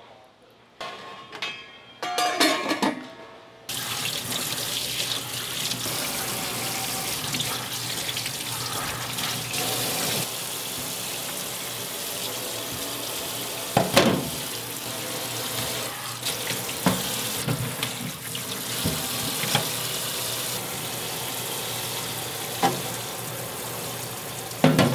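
Tap water running steadily into a stainless-steel sink while a knife trims offal under the stream, with a few sharp knocks of metal and meat against the sink. It starts suddenly about four seconds in, after a few splashes of gloved hands moving radishes in a pan of water.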